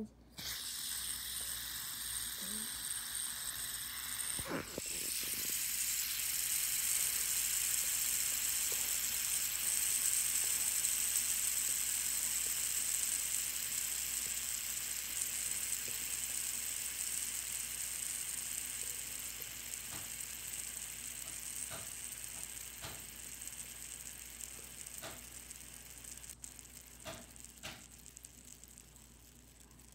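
Fidget spinner's bearing whirring as it spins freely after a flick, a steady high hiss. There is a short knock about four and a half seconds in, after which it gets louder, then it slowly fades as it runs down over nearly half a minute.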